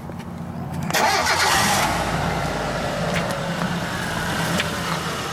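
1994 Plymouth Colt's 1.8-litre four-cylinder engine starting about a second in and running fast, easing down gradually. It runs steadily now that the loose battery terminals have been tightened.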